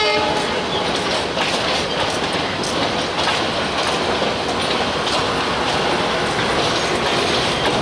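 Diesel-hauled passenger train running along the track, its wheels clattering over the rail joints in a steady, dense rumble.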